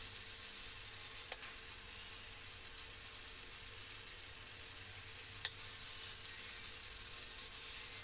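Small DC gear motor running quietly: a steady hiss with a faint even whine. Two sharp switch clicks about four seconds apart.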